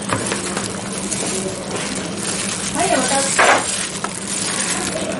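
Gloved hands working sticky rice into a plastic rice mould: plastic crinkling and rubbing, with a brief louder scuff about three and a half seconds in as the mould is moved onto a plate, over a steady background hiss and low hum.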